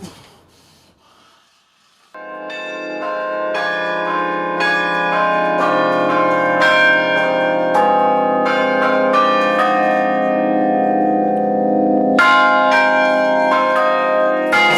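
Church bells break into a peal about two seconds in, after a quiet start: many overlapping strikes that ring on into one another, with a fresh burst of strikes near the end. The bells are ringing the hour, six o'clock.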